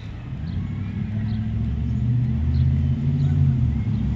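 A road vehicle's engine passing by, a low engine sound that grows louder over the first three seconds and holds near its peak to the end.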